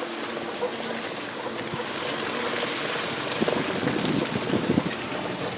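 Car on the move, heard from inside: steady engine hum and road noise with wind rushing past the microphone.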